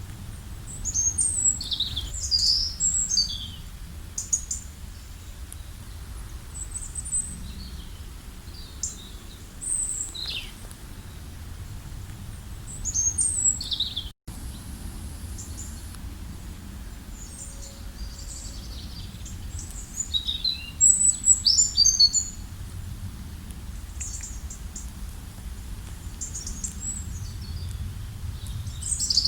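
Wild birds chirping and singing in short, high calls that come in clusters, busiest a second or two in and again about three-quarters of the way through, over a low steady rumble. The sound cuts out for an instant about halfway.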